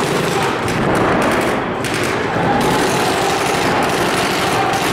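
Several paintball markers firing rapid, overlapping strings of shots, a dense continuous rattle of pops.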